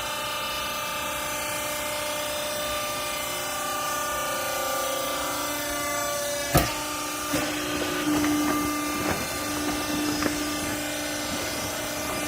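Hydraulic rag baler running: a steady hum with held tones from its hydraulic pump and motor, broken just past halfway by one sharp bang, followed by several lighter knocks and clanks.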